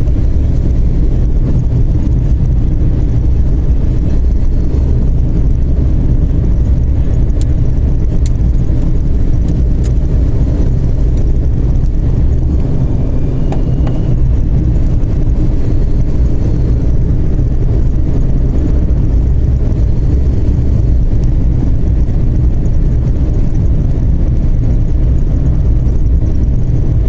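Turbocharged TDI diesel car cruising at steady highway speed: a constant low engine and road drone with no gear changes or pauses. A faint high whistle, typical of the turbo, comes through briefly about halfway through.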